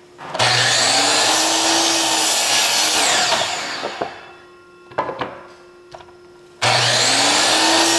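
DeWalt miter saw spinning up with a rising whine and cutting through a wooden board, then spinning down after about three seconds. A few knocks follow as the board is repositioned, and a second cut starts near the end.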